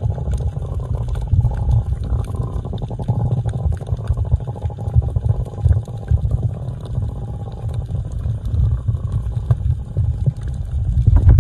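Underwater sound of a green sea turtle breathing out a stream of air bubbles: an uneven low bubbling rumble over a constant fine crackle of clicks from the reef.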